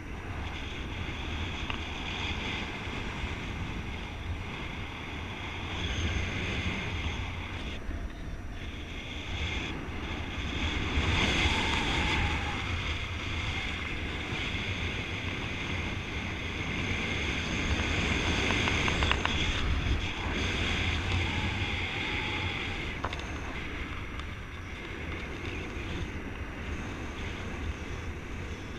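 Wind rushing over the microphone of a paraglider pilot's camera in flight: a steady rush with a deep rumble, swelling louder a little before halfway and again about two-thirds through.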